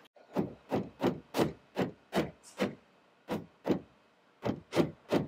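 Dead blow hammer tapping plastic fir tree clips home through an ABS plastic roof console: a run of even taps about three a second, with two short breaks partway through.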